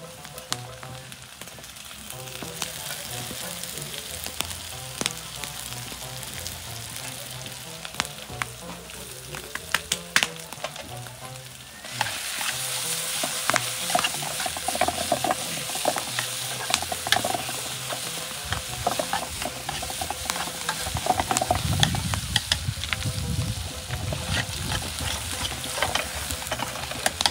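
Food sizzling in a frying pan while a utensil stirs it, with frequent sharp clicks of the utensil against the pan. The frying gets louder about halfway through.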